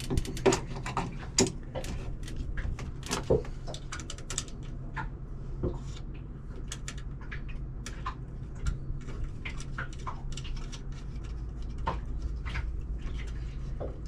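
Irregular light clicks, taps and clatter of hands working on hardware, over a steady low hum.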